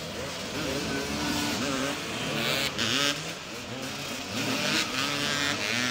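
Several motoball motorcycles running together, their engines revving up and down in overlapping glides as the riders accelerate and slow. Short bursts of hiss come in about halfway through and again near the end.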